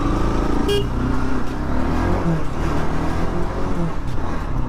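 Bajaj Pulsar NS200's single-cylinder engine running steadily as the motorcycle rides along, its pitch shifting a little midway. A short horn beep comes less than a second in.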